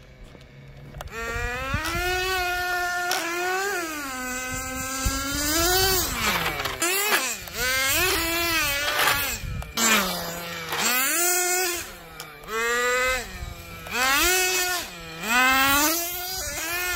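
Traxxas 4-TEC nitro RC car's small two-stroke glow engine revving hard from about a second in. Its pitch climbs and falls as the throttle is opened and lifted, with a run of short throttle bursts in the second half.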